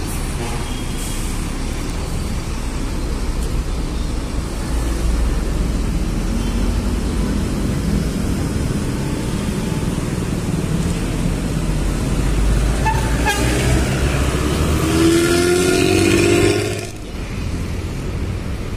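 Heavy diesel coach engine running under street traffic, with a low rumble that strengthens partway through. Near the end a horn sounds for about two seconds and cuts off suddenly.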